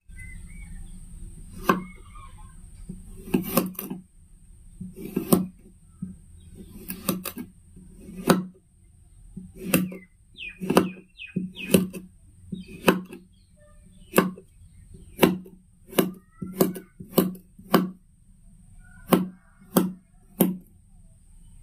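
Kinetic sand being cut repeatedly, about twenty sharp chops coming roughly once a second, with faint bird chirps in the background.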